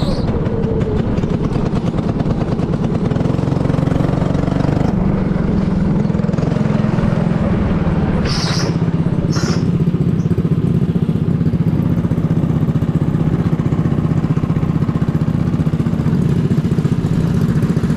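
Go-kart's small petrol engine running, heard from the driver's seat, settling into a steady, even pulse at idle in the second half. Two short high squeaks come about halfway through.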